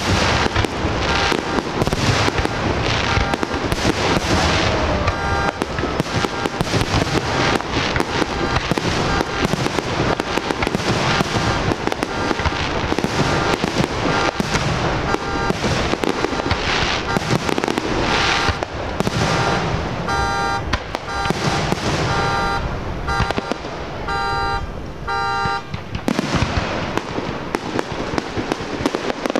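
Fireworks display: a dense, continuous barrage of firework bangs and crackling bursts. A rapid beeping tone joins in for several seconds near the end.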